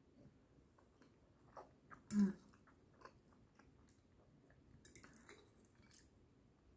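Faint close-up chewing of a mouthful of baked potato, with small wet mouth clicks and one short louder mouth sound a little over two seconds in.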